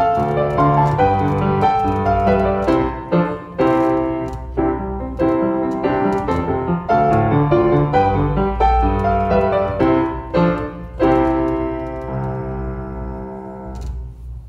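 Upright piano playing a hymn-style piece from sheet music, closing on a final chord held from about three-quarters of the way in that fades away, with a light click as it ends.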